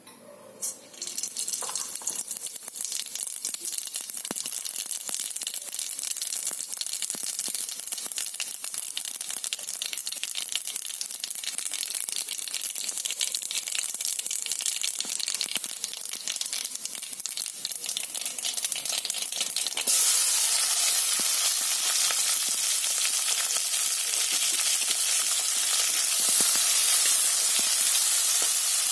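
Cumin seeds crackling and sizzling in hot oil in a steel kadhai, starting about a second in. About twenty seconds in the sizzle jumps much louder and hissier as chopped onion and green capsicum go into the hot oil.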